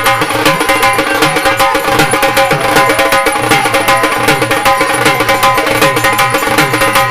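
Instrumental break in a Marathi devotional folk song to Khandoba: a fast, even hand-drum beat under steady held melodic notes, with no singing.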